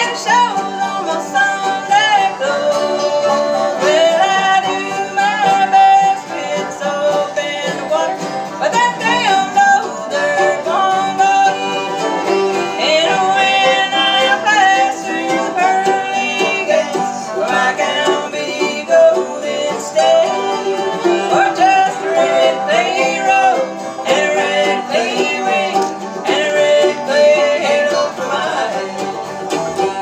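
Bluegrass band playing an instrumental tune on fiddle, banjo, mandolin and acoustic guitar.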